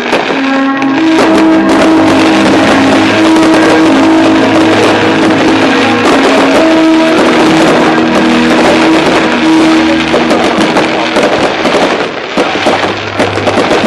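Loud music from a fireworks display's sound system with fireworks bursting and crackling over it; near the end the music thins out and the bangs take over.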